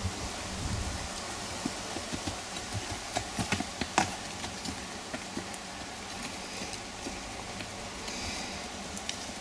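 Hoofbeats of a ridden horse moving over a dirt arena, with scattered sharp clicks and knocks, loudest about four seconds in as the horse passes close, over a steady hiss.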